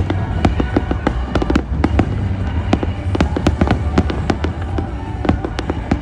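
Fireworks going off in a rapid barrage of sharp bangs and crackles, many a second, over loud music.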